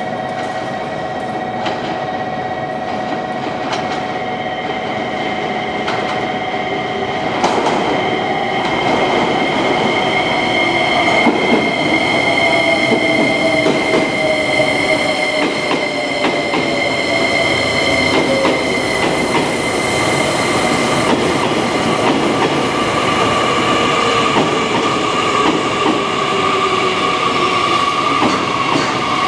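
JR Kyushu 885 series electric limited express pulling into a station and slowing past the platform. Its inverter-driven traction motors whine in steady high tones, with one tone slowly falling in pitch as it brakes. There are occasional clicks of wheels over rail joints and a wheel squeal.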